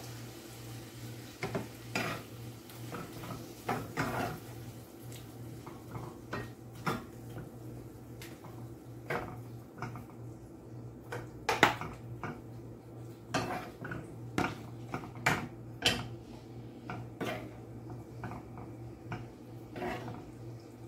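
A metal spoon knocking and scraping against a frying pan and a plastic bowl as gravy is spooned in and the food is stirred, in irregular clinks over a steady low hum.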